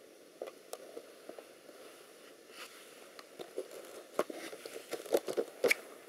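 Handling noise: scattered light clicks and knocks, few at first and coming thicker and louder over the last two seconds, over a faint steady hiss.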